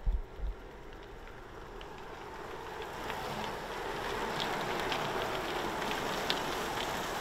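A bunch of gravel bikes riding past on asphalt: a rush of tyre and wind noise that swells as the riders come close, then holds steady as they stream by, with scattered light ticks. A low thump right at the start.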